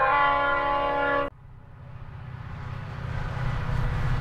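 A train horn sounds a chord of several notes for just over a second and cuts off abruptly. A low rumble then builds steadily louder.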